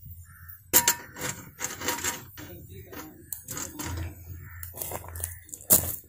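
Cast iron skillet set down and shifted on the rim of a steel wood-burning stove, with metallic knocks and scrapes, among the irregular crackles and pops of the burning firewood. The loudest knocks come just under a second in and near the end.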